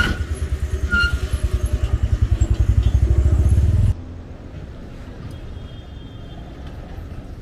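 A motor vehicle engine running close by, its low pulsing speeding up and growing louder, then cut off abruptly about four seconds in. Quieter background noise follows.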